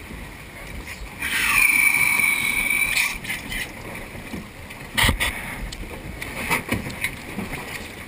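A loud, high-pitched squeal lasting almost two seconds, starting about a second in: it slides down, then holds steady and cuts off sharply. A sharp knock follows about five seconds in, then a few lighter bumps.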